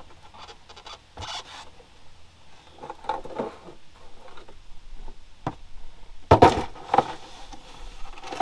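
Hand tools clinking and scraping on metal as a wrench is worked on a tight bolt that does not come loose, with irregular clicks and two louder knocks near the end.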